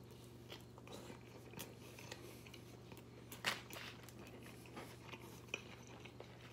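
Faint chewing of a mouthful of burrito: small wet mouth clicks and smacks, one louder smack about three and a half seconds in, over a low steady hum.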